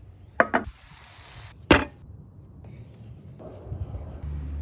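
Bread dough handled on a wooden butcher-block board: two quick knocks about half a second in, then one louder knock about a second and a half in.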